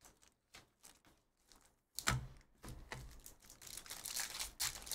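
Foil trading-card pack wrapper being torn open and crinkled by hand, starting about two seconds in with a low bump and running on as crackly rustling.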